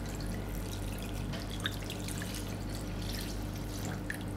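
Water pouring from a glass measuring jug into a metal saucepan of fruit peels, splashing and trickling steadily, over a steady low hum.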